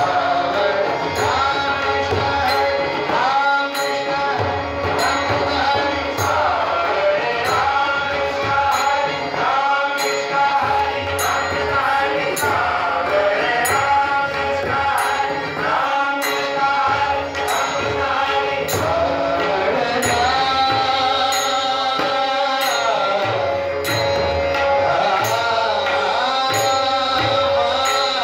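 Marathi devotional bhajan: singing over a steadily held drone note, with hand-drum and evenly spaced small-cymbal strikes keeping time.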